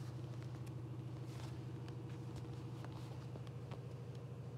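A steady low hum, with faint papery ticks and rustles as a Panini sticker is peeled from its backing by hand.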